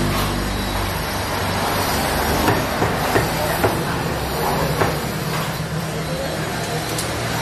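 Steady rumble of road traffic, with a handful of sharp knocks and clatters about two to five seconds in.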